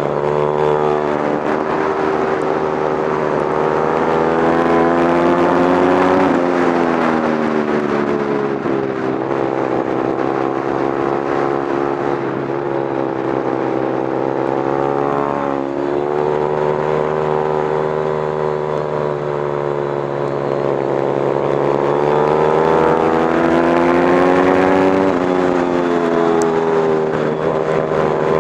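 Motorcycle engine heard from on board, revving up and down with the throttle through the corners, its pitch dropping sharply three times.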